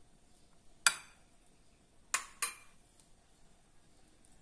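A metal serving utensil clinks against ceramic plates and bowls. There are three sharp clinks, one about a second in and two in quick succession about two seconds in.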